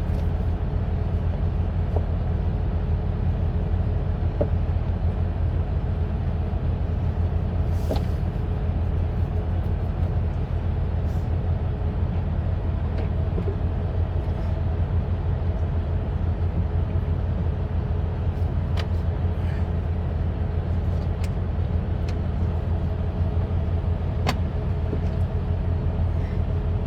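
Steady low engine rumble of an idling vehicle, with a few light clicks here and there.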